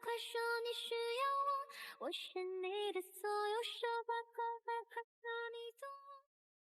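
Background music: a song with a high, childlike singing voice in held, gliding notes, which stops short about six seconds in.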